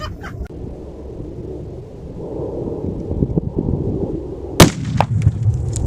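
A single loud rifle shot about four and a half seconds in, followed by a deep low rumble. Before the shot there is only a low rumbling background.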